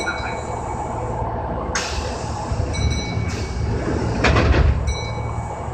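Kintetsu 6020-series train standing at a station platform: a steady low hum from the train, three short high beeps, a hiss about two seconds in and a louder rush of noise just after four seconds.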